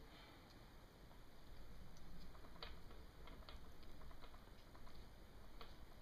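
A few faint, irregular small ticks from fingers handling the hook and tying thread while a fly is tied by hand, over quiet room tone.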